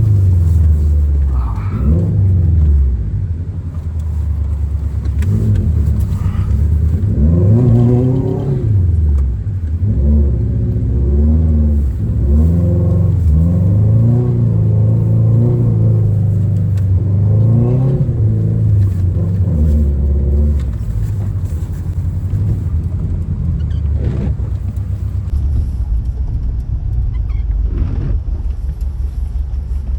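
Subaru WRX's turbocharged flat-four engine revving up and down again and again under hard driving in snow. Near the end it settles into a steadier low rumble.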